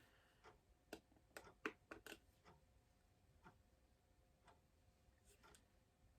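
Faint clicking: a quick run of sharp clicks and taps about one to two seconds in, then single soft ticks roughly once a second.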